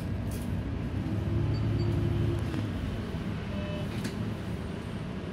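Engine drone of a road vehicle heard from inside as it pulls away and drives on, rising in pitch and getting louder about a second in, then easing off, over steady road noise.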